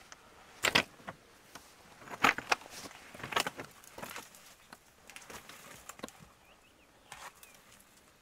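Footsteps climbing over rock and loose stones: irregular crunches and scrapes of boots, loudest in the first four seconds and thinning out near the end.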